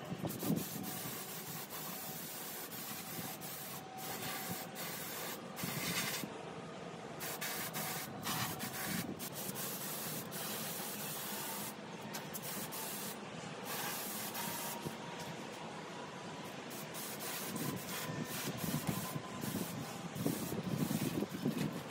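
Compressed-air gravity-feed spray gun hissing in repeated bursts as the trigger is pulled and released, spraying paint onto small motorcycle parts.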